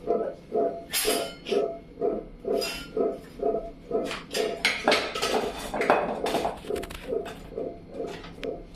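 Stainless steel pots, lids and a wire dish basket clanking and clinking as a toddler handles them. Underneath is a steady pulsing sound, about three times a second.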